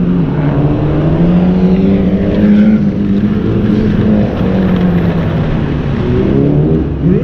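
A 1997 Subaru Legacy Brighton's 2.2-litre flat-four engine under hard driving on an autocross course. Its pitch climbs, drops back as it eases off, then rises quickly again near the end.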